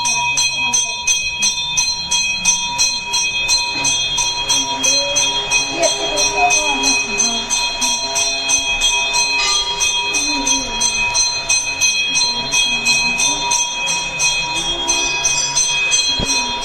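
Temple bells ringing fast and without a pause, about five strikes a second, over a steady ringing of several high tones, with voices or singing faintly beneath.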